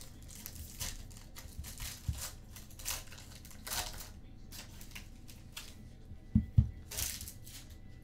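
Sports card packs and cards being handled: scattered crinkling, clicking and sliding noises, with two low thumps close together about six and a half seconds in.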